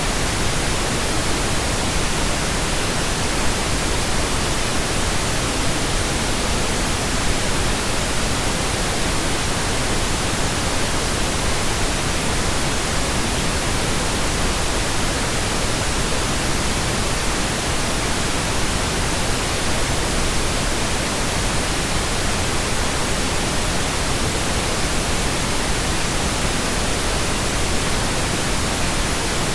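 Steady pink noise, generated electronically: an even, unchanging hiss across all pitches.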